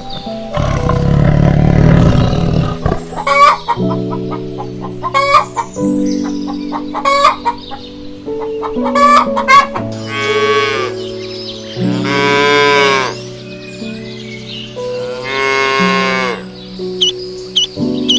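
Chickens clucking in short calls, then a rooster crowing three times, each crow lasting a second or more, over soft background music.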